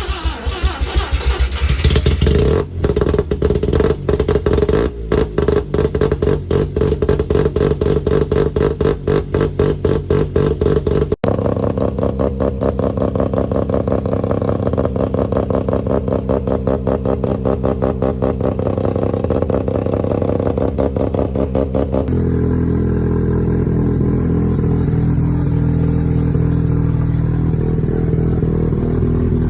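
Mazda 12A rotary engines running with the choppy, pulsing 'brap' idle of a ported rotary, in three successive clips that change abruptly about a third and two thirds of the way through; the last one runs more smoothly.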